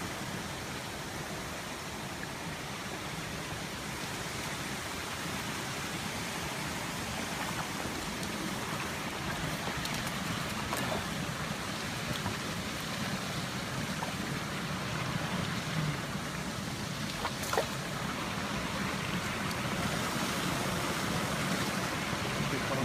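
Mountain stream water flowing steadily over rocks, a continuous rushing, with a few faint clicks and one sharper click about two-thirds of the way through.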